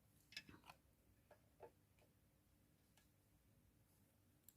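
Near silence with a few faint, short taps and clicks of tarot cards being handled and laid on a table.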